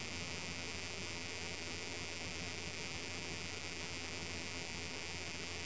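Steady background hum and hiss with no distinct event: a low electrical hum under a constant faint hiss.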